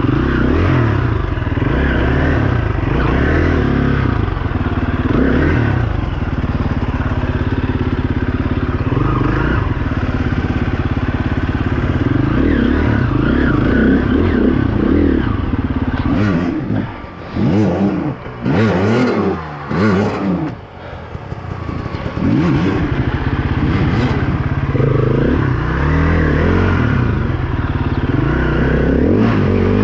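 KTM enduro dirt bike engine revving hard under load on a rocky hill climb, its pitch rising and falling with the throttle. About halfway through, the engine drops off into a few short bursts of revs, with sharp knocks, before pulling hard again.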